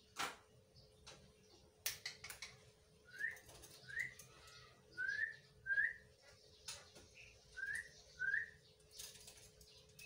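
Six short rising whistles, grouped in three pairs, with a few sharp clicks before, between and after them.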